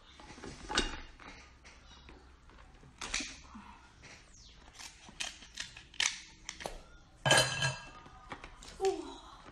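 Kitchen scissors snipping and cracking through the hard shell of a cooked king crab: a series of sharp cracks and clicks, with the loudest burst of cracking near the end.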